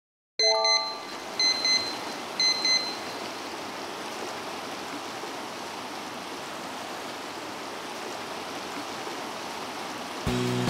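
Clear mountain river rushing over a rocky bed: a steady wash of flowing water. Just after the start a short chime of tones sounds, followed by two quick pairs of high beeps.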